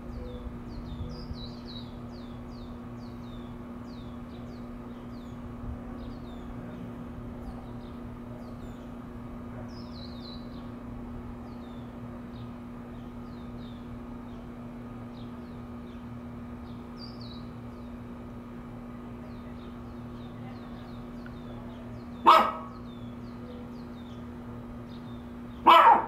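A dog barks twice near the end, the loudest sounds. Before that, small birds chirp over and over above a steady low hum.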